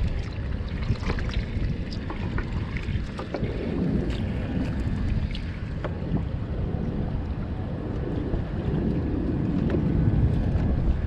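Wind buffeting the microphone on a drifting skiff: a steady, uneven low rumble. Faint scattered clicks from fishing tackle being handled.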